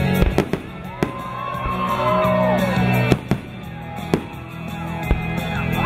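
Fireworks shells bursting in the air, several sharp bangs spread over a few seconds, over music that plays throughout.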